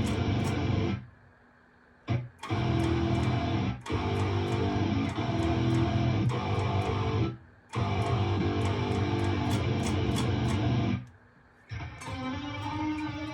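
Metalcore music with heavy distorted electric guitars, bass and drums with cymbal hits, playing chopped stop-start phrases that cut to near silence about a second in, near four seconds, around seven and a half seconds and near eleven seconds. After the last break a lighter passage follows with a pitched tone bending up and down.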